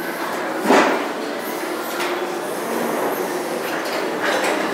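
Forklift carrying a mounted snowplow blade running with a steady mechanical drone, with a loud clank about a second in and a lighter one near the end.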